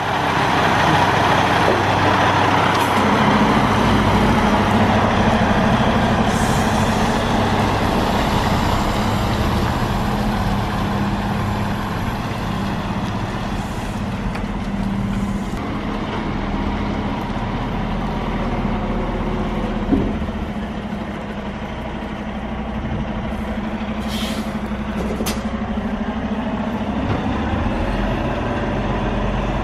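Semi truck's diesel engine running steadily at low speed while the tractor-trailer is manoeuvred and backed in. There is a short click about two-thirds of the way through, and a couple of brief air hisses soon after.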